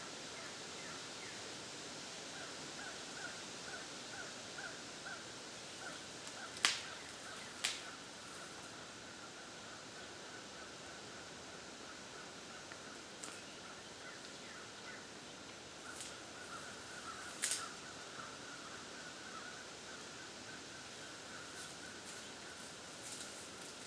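Woodland ambience: a steady hiss with faint, repeated chirping at one pitch, broken by a few sharp clicks or snaps. The two loudest come about seven and seventeen seconds in.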